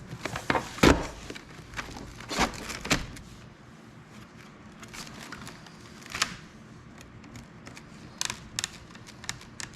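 Scattered light knocks and clacks of waxed wooden beehive frame parts being handled and set down, the loudest about a second in, with a few quick clicks near the end.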